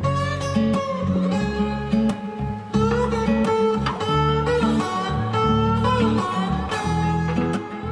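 Background music led by guitar: plucked and strummed guitar lines with a held melody over a steady bass.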